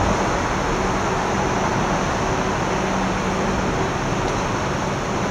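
Steady rumble of an Electrostar electric multiple unit moving through the station, with a faint low hum over it.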